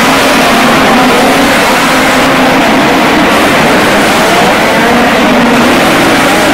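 A pack of four-cylinder midget race car engines running hard on a dirt track, their pitch rising and falling as the cars accelerate through the turns.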